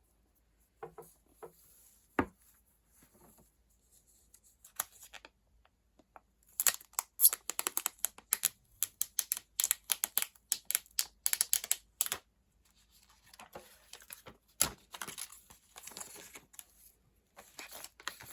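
Phone packaging being unboxed by hand: a few light taps and clicks, then from about six seconds in a dense run of crackling and tearing of wrap and paper, followed by softer crinkling.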